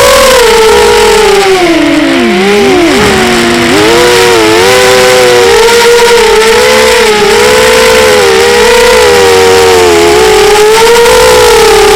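Two small model airplane engines running close together in pitch. About two to three seconds in, one engine's note drops sharply and swings back up, then both hold near a steady pitch with slight wavers.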